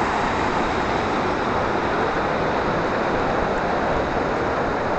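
Water pouring over a canal lock gate: a steady, even rush.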